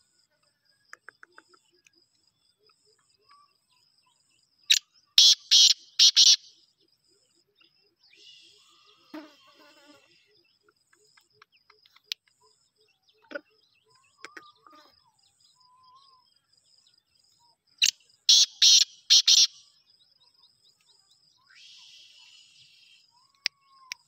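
Black francolin calling twice, about thirteen seconds apart: each call is a short first note followed by three loud, harsh notes in quick succession.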